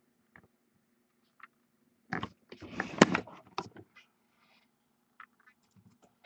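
A few scattered sharp clicks, then about two seconds in a burst of rustling and knocking lasting around two seconds, with one sharp knock about three seconds in, under a faint steady hum.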